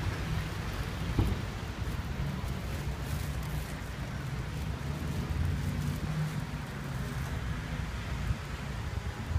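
Street noise on a snowy city street: a steady low rumble of passing traffic mixed with wind buffeting the phone's microphone.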